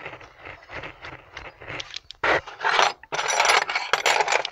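Metal hand tools clinking and scraping as they are handled, faint at first and much louder from about two seconds in.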